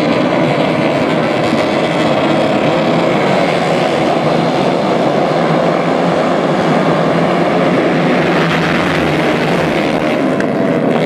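A pack of dirt-bike racing motorcycles running together at high revs, a loud steady blend of many engines without a break.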